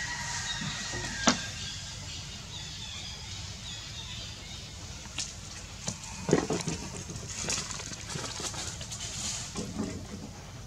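Outdoor ambience: a steady low rumble, faint bird chirps during the first second and a half, and a few sharp clicks and knocks, one about a second in and a cluster around six seconds in.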